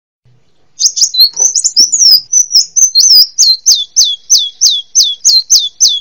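Kolibri wulung sunbird singing: a jumble of high twittering notes begins about a second in, then settles into a fast, even run of short sharp notes, each falling in pitch, about four a second.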